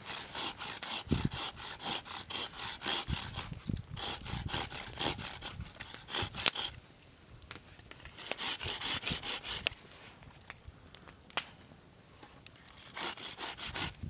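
Small folding hand saw cutting a notch into a green wooden stick, with quick back-and-forth strokes at about four a second. It saws in runs: steadily through the first half, stopping about six and a half seconds in, again about eight to ten seconds in, and briefly near the end.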